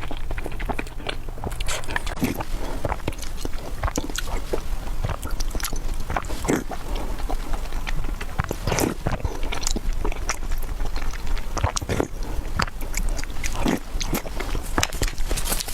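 Close-miked eating: a person biting and chewing food with many sharp, irregular mouth clicks and wet smacks.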